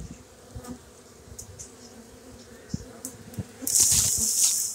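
Honeybee swarm buzzing around a hive box, a steady hum, with a few low bumps. About a second before the end, a loud hissing rustle lasts about a second.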